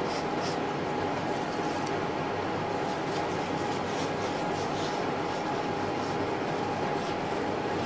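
A wooden tongue depressor scraping and spreading wet liquid counter enamel across a copper piece: a continuous soft rubbing with no clear stroke rhythm, over a steady faint hum.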